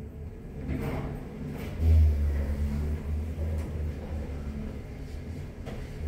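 Jiangnan Express HOMEX5100 passenger lift travelling in its shaft, heard as a low rumble inside the car that swells about two seconds in. This is the abnormal running noise the lift is known for.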